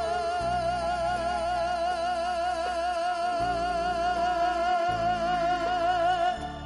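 Male singer holding one long note with a wide vibrato over a band's accompaniment, the chords changing underneath; the note and the backing cut off shortly before the end.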